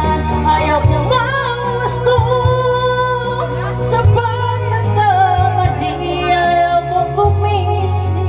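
A woman singing into a handheld microphone over music with a heavy bass line, her voice wavering with vibrato on held notes.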